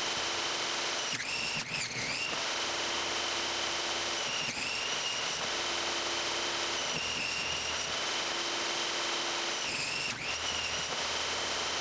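Table saw running with a steady high whine while it rips 1-inch XPS foam board. The whine dips briefly about four times as the blade takes the cut.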